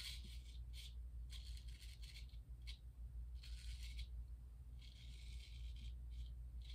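Gold Dollar 208 straight razor scraping beard stubble through shaving lather: a series of short, faint rasping strokes, about eight in all, with small pauses between them.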